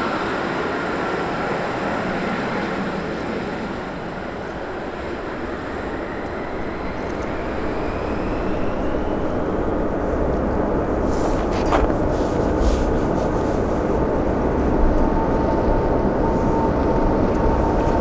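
Jet aircraft on takeoff with no speech: first an Embraer Phenom 300 business jet's turbofans with a whine rising in pitch, then a Boeing 777-300ER's GE90 turbofans at takeoff thrust, a deep rumble with steady engine tones growing louder as the aircraft rotates and lifts off.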